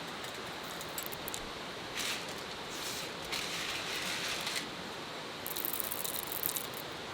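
Small hard objects rattling and clinking in four short bouts over a steady hiss.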